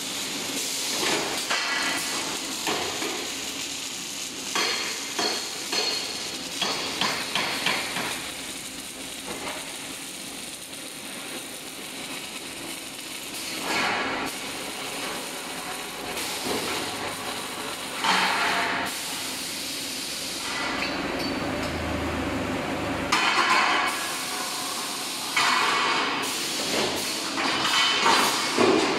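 Steel scaffolding machinery running on a factory floor: a steady mechanical din with repeated metal clanks and knocks, and several short hissing bursts.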